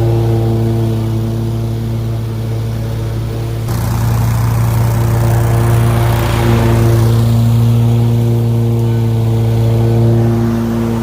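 Lawn mower engine running steadily at constant speed, its pitch unchanging. About four seconds in, the background noise changes abruptly.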